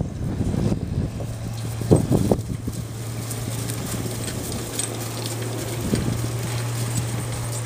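Harnessed Rocky Mountain Horse pulling a two-wheeled training cart over grass, with a few soft hoof knocks and cart rattle over a steady low hum.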